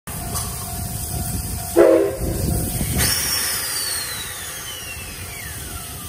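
Steam whistle of the C57 180 steam locomotive giving one short blast about two seconds in, the loudest sound here, followed by a rush of steam hiss and a thin whine falling steadily in pitch over the last few seconds.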